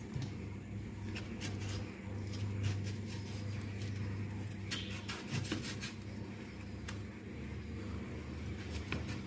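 Kitchen knife cutting into pomegranate rind on a wooden chopping board: a few faint scrapes and clicks over a steady low hum.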